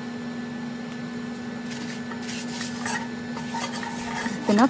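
A paper towel rubbing around the inside of a nonstick frying pan, with a run of dry wiping scrapes from about two seconds in, over a steady background hum.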